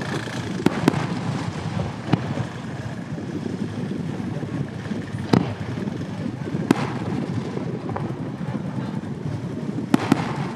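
Aerial firework shells bursting: seven sharp bangs at uneven intervals. Two come close together about a second in, single ones around two, five and seven seconds in, and a quick pair near the end.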